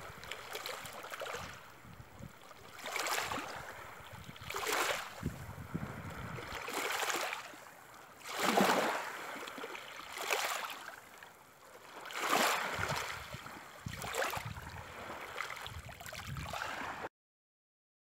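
Small waves washing on a sandy shore, a swell of surf about every two seconds, cutting off suddenly near the end.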